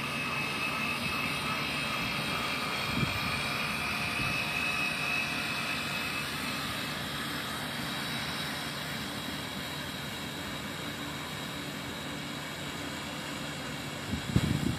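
Radio-controlled model ship's motors and propellers running at high power, a steady whine with a high tone that fades as the boat moves away. A few knocks near the end.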